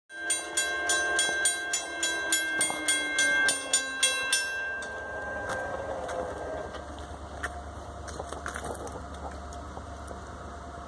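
Railroad grade-crossing bell ringing fast and evenly, about three to four strikes a second, under a falling hum, then stopping after about four and a half seconds as the crossing gate comes down. A low, steady rumble continues after it.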